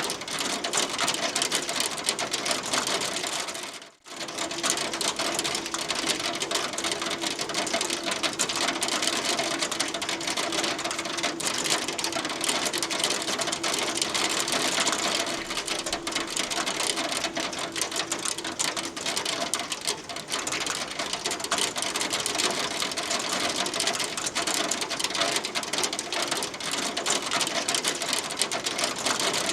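Hail pelting a hard surface: a dense, continuous patter of many small rapid impacts. There is a brief drop-out about four seconds in.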